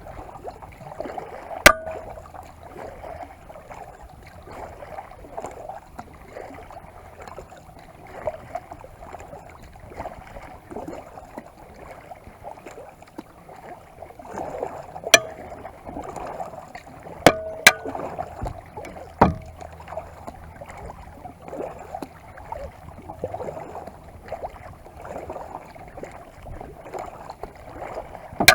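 Kayak paddle strokes swishing and splashing in lake water, with several sharp knocks scattered through.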